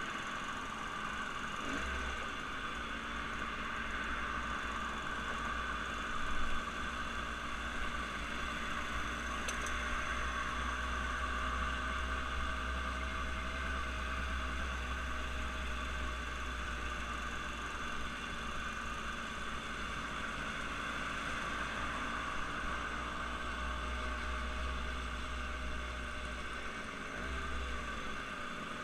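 Steady drone of a running engine, with a constant low rumble and an even hum.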